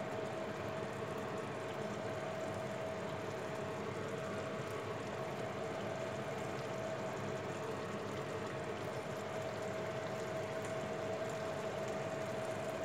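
Chicken in tomato sauce simmering in a frying pan, a steady bubbling hiss, with a steady hum running underneath.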